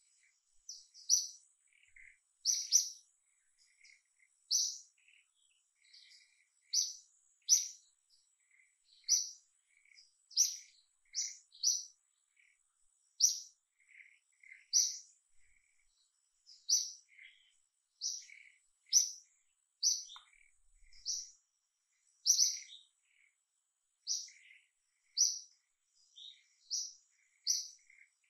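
Birds chirping: short, sharp high notes, often in quick pairs, repeated every second or two, with fainter lower chirps in between.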